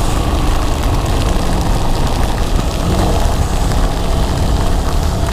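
Steady, loud rush of wind and heavy rain on the microphone of a motorcycle riding at speed in a downpour, with a deep rumble underneath.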